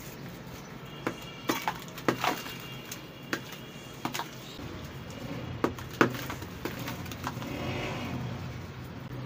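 Soaked red sand brick being squeezed and broken by hand in a basin of water: a series of irregular sharp crunches as chunks crack apart, then a softer wet crumbling and sloshing as the pieces fall back into the water.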